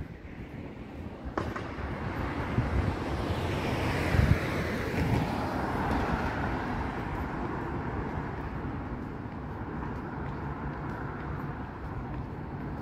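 A vehicle passes on a city street: engine and tyre noise swell over the first few seconds, peak about four to six seconds in, then slowly fade into steady traffic hum. There is a single sharp click about a second and a half in.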